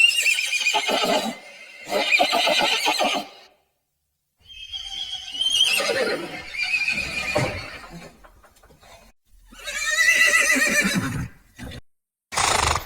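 Horse whinnying: about four long calls with short gaps between them, each falling in pitch, and a brief sound near the end.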